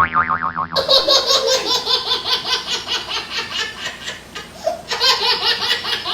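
A wobbling boing sound effect for under a second, then a long stretch of laughter in quick repeated ha-ha pulses. The laughter pauses briefly about four and a half seconds in and starts again.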